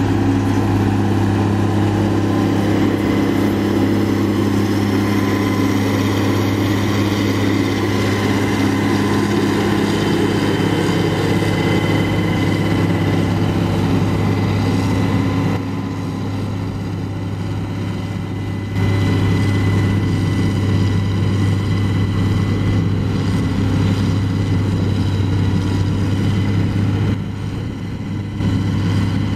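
John Deere 770B motor grader's diesel engine running steadily under load while it grades dirt, a deep drone with a faint high whine above it. It turns quieter for a few seconds twice.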